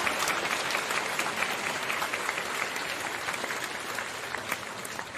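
Applause, many hands clapping densely, gradually fading out.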